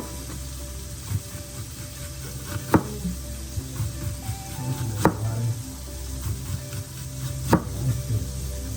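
Food sizzling as it fries in a pan, under soft background music. A sharp short knock comes about every two and a half seconds, four times.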